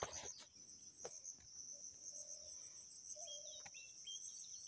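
Faint, steady, high-pitched insect drone, with a few short bird chirps between about three and four seconds in and a couple of soft clicks.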